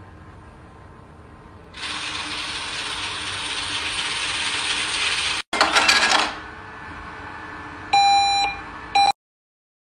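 A steady hiss lasting about three and a half seconds, then a short rattling burst, then two short electronic beeps about a second apart.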